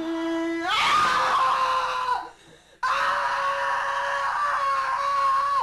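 A young woman screaming at full voice: a lower cry that jumps up into a long high scream, a short break, then a second long held scream that cuts off sharply. It is a cathartic emotional release during rebirthing breathwork.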